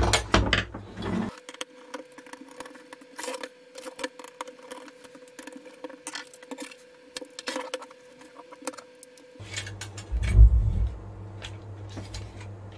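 Metal and plastic parts of a SATA hot-swap drive rack being handled and moved on a desk: scattered light clicks and clinks from the metal frame and lever against the plastic front, with one louder low thump about ten seconds in.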